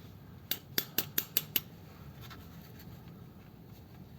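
Six quick sharp metallic clicks, about five a second, from hand tools working on the nuts of a gearbox rear mount, then only faint background.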